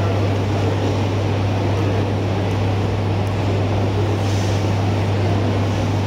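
Steady low hum under an even wash of room noise, with no distinct event: the hall's sound system and crowd ambience between acts.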